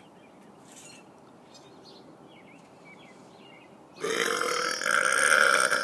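A man's long, loud, deliberate burp, starting about four seconds in and lasting nearly two seconds.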